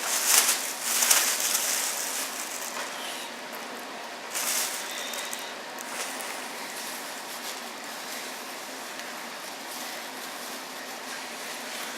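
Rustling and scraping of TV packaging being handled and searched through. It is loudest in the first two seconds and again briefly about four and a half seconds in, then goes on more softly.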